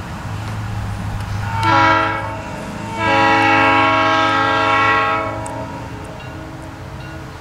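Cuyahoga Valley Scenic Railroad diesel locomotive's multi-chime air horn sounding a short blast and then a long one, over a steady low rumble from the approaching train. The short-then-long pattern fits the close of a grade-crossing signal.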